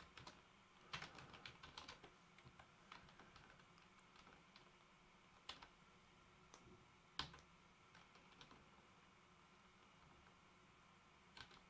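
Computer keyboard typing, faint: a quick run of keystrokes in the first few seconds, then scattered single key presses with long gaps between them.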